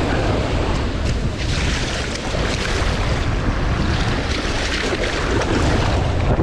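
Wind buffeting the microphone in uneven low gusts over a steady rush of surf.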